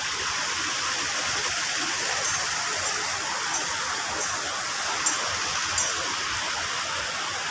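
The Subarnarekha river in spate, rushing steadily over rocks below. A few faint, short high ticks recur about every half second from about two seconds in.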